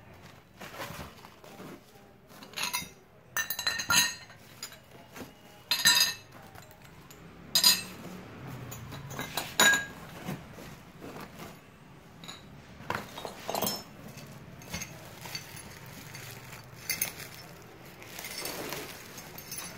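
Pieces of a broken gold-coloured glass piece clinking against each other as they are handled among styrofoam and bubble-wrap packing: irregular sharp clinks, the loudest in the first half. The glass arrived broken in shipping.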